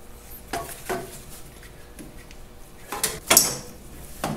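A few sharp metal knocks and clunks, the loudest a little after three seconds in, as the governor housing on a Farmall 504 engine is worked loose by hand and pulled free of its stuck gasket.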